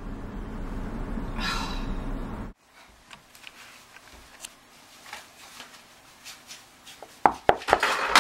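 Low road and engine rumble inside a moving Toyota car, cutting off abruptly after about two and a half seconds. Then faint rustling and small knocks of things being handled on a cluttered desk, with a few louder clattering knocks near the end.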